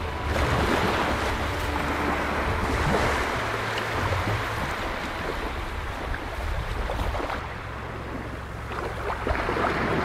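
Waves washing on a beach, with wind on the microphone.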